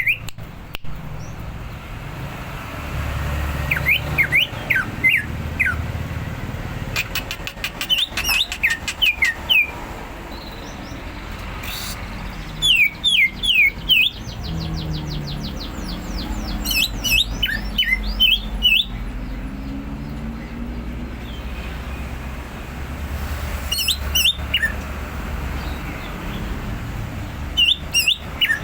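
Cucak ijo (green leafbird) singing in repeated bouts of quick, sharp, downward-slurred chirps, each bout a second or two long and a few seconds apart, over a steady low rumble.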